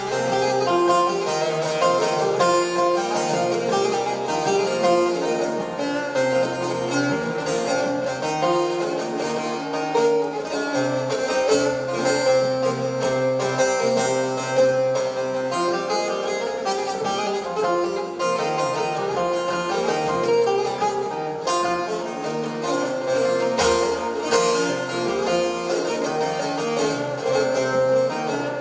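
Bağlama (long-necked Turkish saz) played instrumentally: a busy plucked melody over a steady ringing drone.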